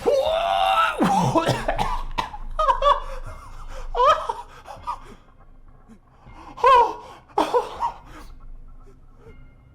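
A person laughing in several short bursts, with gasps and breaths between them, loudest at the start and again about two thirds of the way through.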